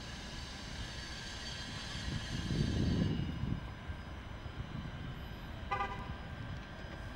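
Alstom Citadis tram rolling slowly through a curve, with faint steady high whining tones that fade out about three seconds in and a low rumble swelling just before that. Near six seconds a short, pulsed toot sounds, typical of the tram's warning horn.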